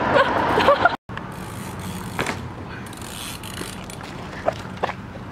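A run of short high squeaks that cuts off abruptly about a second in. Then a Rocker mini BMX rolls on pavement: steady tyre and road noise with a few sharp clicks.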